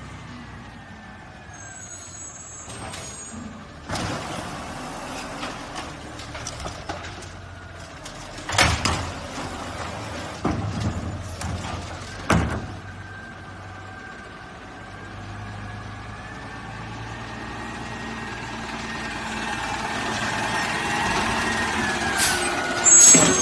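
Garbage truck running, with three loud sharp bangs in the middle and its engine growing steadily louder over the second half. Brief high squeals, typical of air brakes, come near the start and again at the very end.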